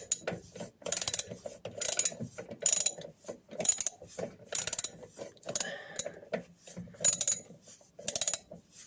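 Socket ratchet clicking in short strokes about once a second, working a tiny 5.5 mm nut off the carbon brush holder of a washing machine motor.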